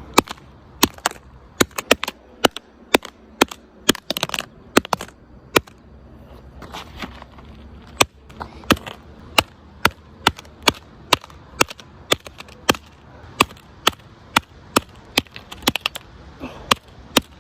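Hammer striking an iPhone 7 over and over: sharp, separate blows, roughly two a second.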